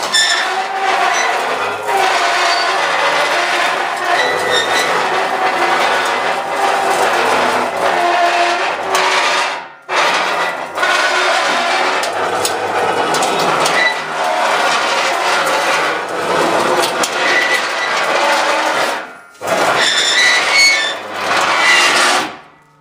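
Loud, eerie droning from a running machine, with pitches that shift over a rough noisy bed, made to imitate the 'strange sounds from the sky'. It cuts out briefly twice and fades away at the end.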